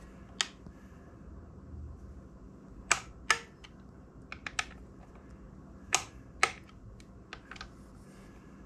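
Sharp clicks from an inch-pound torque wrench with a T27 Torx bit on the air filter backing-plate bolts, as the bolts reach their 48–72 inch-pound torque. Several single clicks, some in pairs about half a second apart, with a few fainter ticks between.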